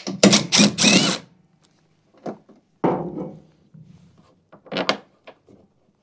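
Cordless drill briefly spinning a screw out, its motor whine rising for a moment, followed by a few separate knocks and clunks of the tool and cover being handled.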